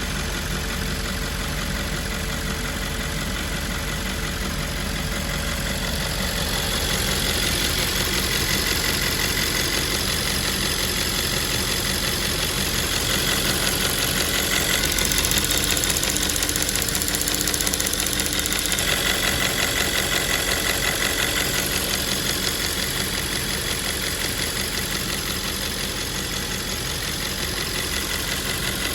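Audi S5's 4.2 V8 engine idling steadily with a new fuel purge valve fitted.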